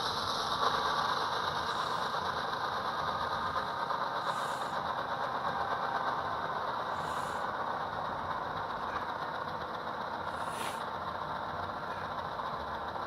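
Diesel prime-mover sound from an ESU sound decoder in an HO scale model locomotive, played through its small onboard speaker as the throttle is brought back down from notch 8. It runs steadily and gets slightly quieter as it winds down.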